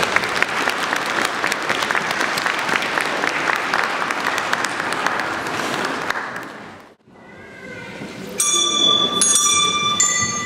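Audience applauding, dying away about six or seven seconds in. After a short gap, clear bell notes start ringing one after another near the end.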